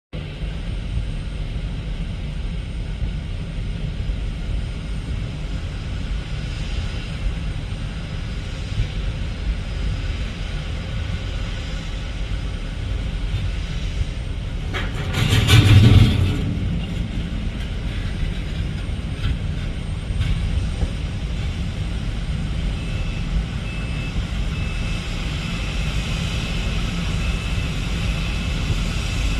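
Jet aircraft noise at an airport: a steady low rumble, with a brief loud rush about halfway through and a faint high whine in the last few seconds.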